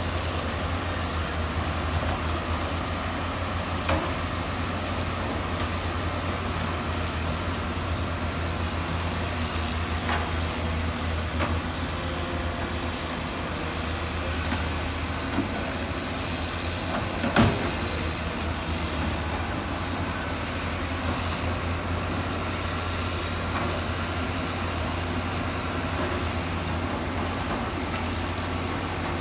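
Heavy diesel engine of a construction machine running steadily, with a few knocks and clanks over it, the loudest a little past halfway.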